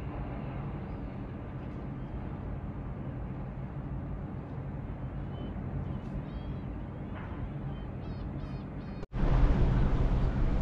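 Steady low hum of a cruise ship's machinery, with a few faint high bird chirps in the second half. Near the end the sound switches abruptly to louder wind rushing over the microphone on top of the rumble.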